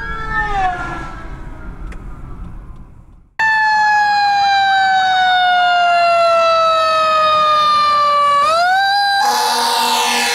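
Fire truck sirens: first a siren wailing up and down over road noise, then, after a sudden cut, a loud siren slowly falling in pitch for about five seconds before winding back up. Near the end a loud horn blast sounds over it.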